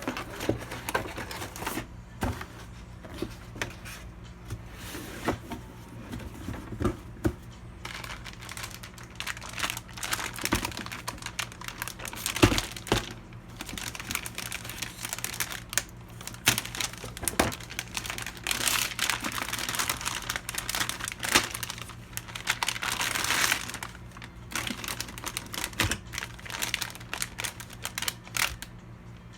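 Computer parts and their packaging being handled: crinkling of packaging with scattered clicks, taps and knocks, denser crinkling for several seconds past the middle. A steady low hum runs underneath.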